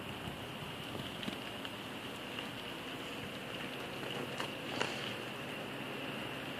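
Steady outdoor background hiss with no clear single source, and a few faint ticks about four and a half seconds in.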